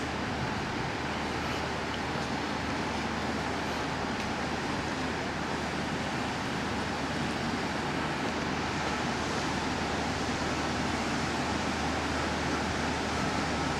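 Train drawing slowly into a station platform: a steady, even running noise, growing slightly louder toward the end.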